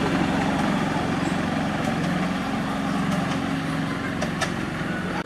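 Ride-on miniature park railway train running along its track and moving away: a steady low locomotive hum that eases off slightly, with a few sharp clicks scattered through it.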